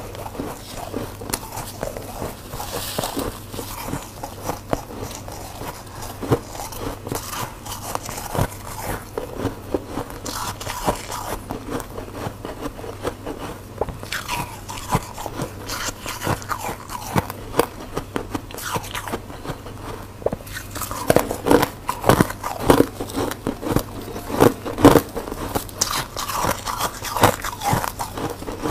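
Close-miked biting and chewing of yellow-coloured freezer frost: a run of soft, snowy crunches that grows louder and more closely packed in the last third.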